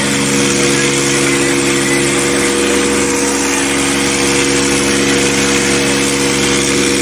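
Massey Ferguson tractor's diesel engine running hard at a steady, unchanging speed while the tractor is held standing on its rear wheels in a wheelie stunt.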